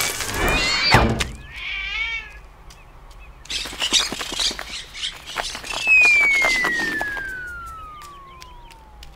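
Edited-in comedy sound effects: a thunk in the first second, a short warbling call, then a flurry of wing flapping and bird chirps. After that comes one long whistle falling steadily in pitch for about three seconds.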